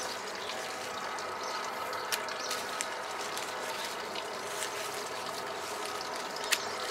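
Leafy olive shoots being handled with pruning shears: light rustling and a few small sharp clicks, the sharpest about two seconds and six and a half seconds in, over a steady background hum.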